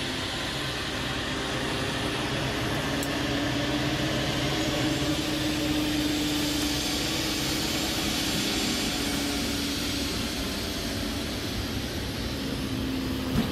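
Steady aircraft turbine noise: an even rush with a constant droning hum underneath. A single short knock comes near the end.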